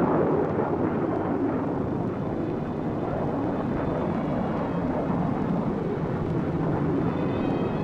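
Steady jet engine noise and rushing air from a B-52 bomber in flight.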